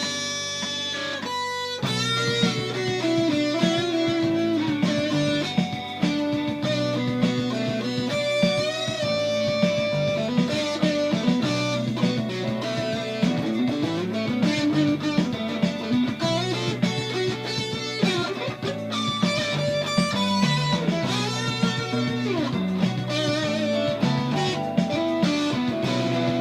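Warmoth Telecaster electric guitar with a Seymour Duncan Little '59 pickup, played through distortion: lead lines of single notes with string bends.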